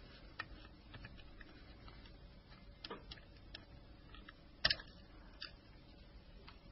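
Faint, scattered small clicks of a hand tool working on a mobile phone's internals while the LCD connector is unlocked, with one louder click nearly five seconds in.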